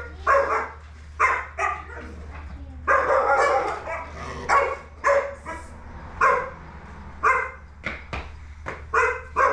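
Dog barking repeatedly, about a dozen short barks at uneven intervals.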